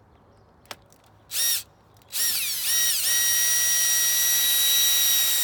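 Electric drill-driver backing a screw out of a patio umbrella's hub: a short blip of the motor about a second in, then from about two seconds in it runs up in pitch and holds a steady high whine.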